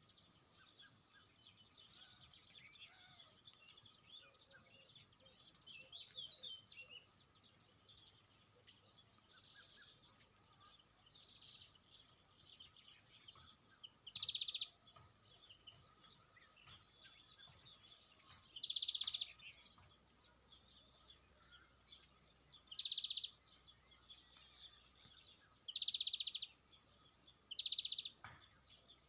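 Small birds chirping and twittering. From about halfway, a loud buzzy trill about half a second long comes five times, a few seconds apart.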